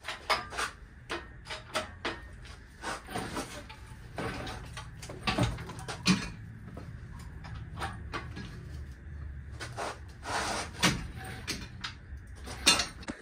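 Irregular clanks, knocks and scrapes of hand tools and parts being handled, over a low steady hum.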